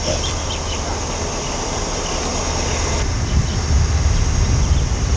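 Fishing boat engine running steadily, a low drone under a rough, even noise. The owner brought it in because it had started making an unusual noise.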